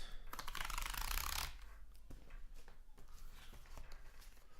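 Sports cards and their packaging being handled: a dense rustling scrape for about a second near the start, then faint clicks and rustles of the cards.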